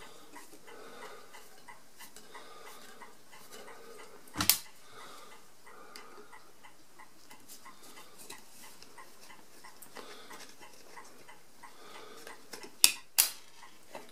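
Screwdriver working the bottom-plate screws out of a mechanical calculator's steel base: quiet scraping and turning, with faint regular ticking. One sharp metal clink comes about four seconds in and a few more near the end as the screws and the plate come loose.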